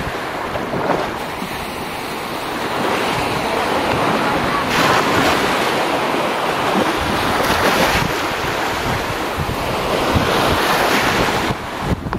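Shallow ocean surf washing in, with wind buffeting the microphone. The wash swells and eases every few seconds.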